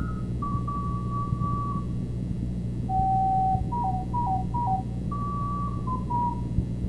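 Solo recorder playing a melody of single clear notes: a couple of long held notes, then quick alternating two-note figures, over a steady low hum.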